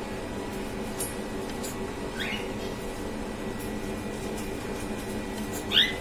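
Cockatiels giving short rising chirps, a faint one about two seconds in and a louder one near the end, over a steady low hum.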